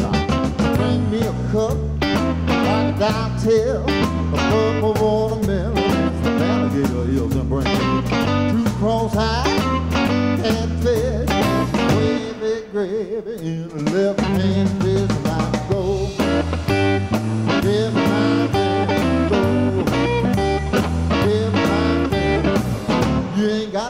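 Electric blues band playing live: a walking bass line, drum kit and electric guitar, with a male singer. The bass drops out briefly about halfway through and then comes back in.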